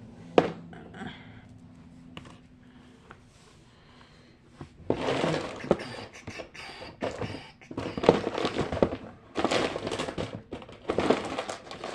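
Small plastic and rubber fidget toys clicking and clattering as they are rummaged through and handled in a drawer: one sharp knock just after the start, a few light clicks, then busier clattering and rustling through the second half.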